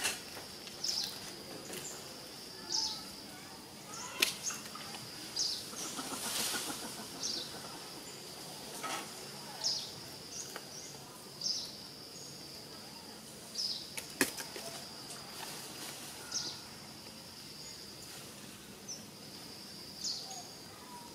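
Forest ambience: a steady high insect drone, with short high chirps every second or two and a few sharp clicks, the loudest about four seconds in and about fourteen seconds in.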